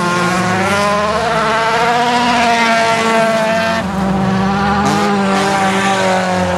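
Several folkrace cars racing together on a dirt track, their engines revving hard, each pitch rising and falling as they accelerate and shift, one over another.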